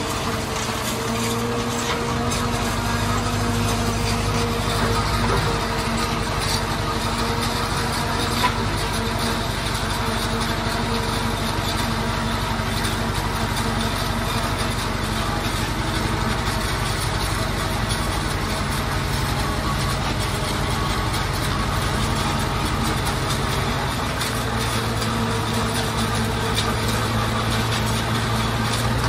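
Tractor engines running steadily under load while a tractor-mounted forage harvester cuts and chops standing corn for silage: a continuous mechanical drone whose low note shifts slightly a couple of times.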